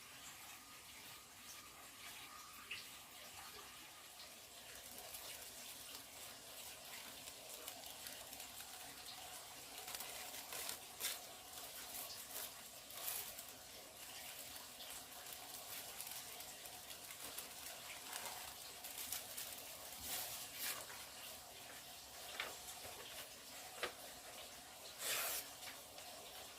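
Faint running water with scattered small clicks and knocks.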